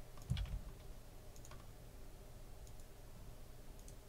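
A few faint, sparse clicks and a dull low thump about half a second in, over quiet room tone.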